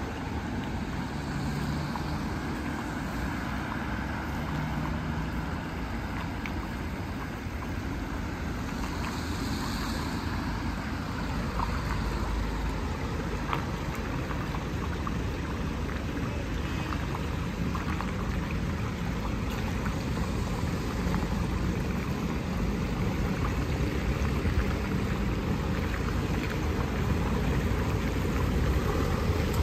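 Floodwater draining into a kerbside storm drain, swirling down in whirlpools, mixed with cars passing on the wet road; the noise grows a little louder in the second half.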